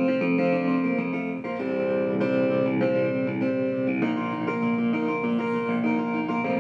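Instrumental music from a CD played through loudspeakers driven by a QSC EX 1600 power amplifier while its channel 2 gain knob is turned. The music comes through clean and steady with no scratchy crackle, the sign that cleaning has cleared the dust and debris from the gain control.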